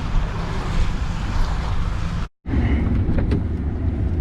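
Car driving, heard from inside the cabin: a steady low rumble of engine and tyres on the road. It cuts out for a moment a little past halfway, then carries on the same.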